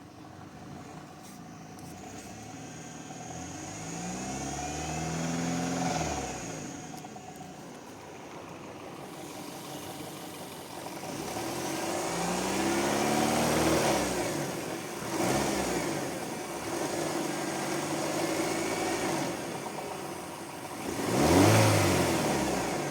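Audi Q5 engine revved several times, each rev rising and falling back toward idle, with the sharpest and loudest rev near the end. The owner calls the engine sound bad.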